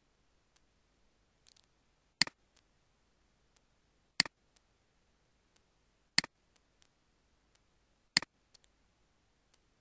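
Computer mouse button clicks: four sharp clicks about two seconds apart, each followed straight away by a softer second click, with a few faint ticks in between.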